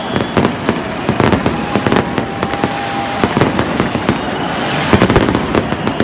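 Aerial fireworks going off in a rapid, irregular string of bangs and pops, thickest about five seconds in, over a steady background din.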